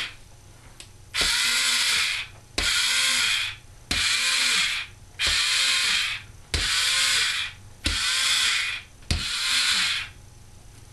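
Electric cookie press motor whirring in seven short bursts of about a second each, each starting with a click, with short pauses between. Each burst pushes out one spritz cookie of dough onto the baking sheet.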